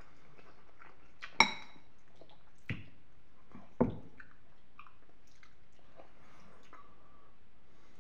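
A metal spoon knocking against a ceramic pasta bowl three times, the first, about a second and a half in, loudest and ringing briefly, between faint wet chewing of creamy penne.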